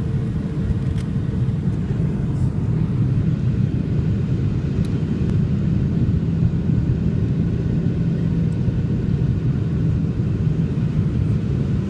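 Boeing 757 passenger-cabin noise during the landing approach: a steady low rumble of engines and airflow, with a faint steady hum above it.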